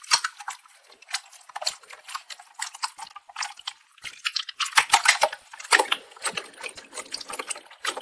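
Slime being worked by hand, giving a rapid, irregular run of small crackles and sticky pops that grows denser and louder about five seconds in.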